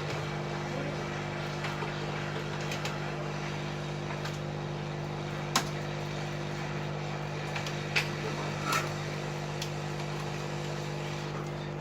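Steady hum of a hot-air rework station's blower while a phone IC is heated off the board, with a few faint clicks about halfway through and a little later.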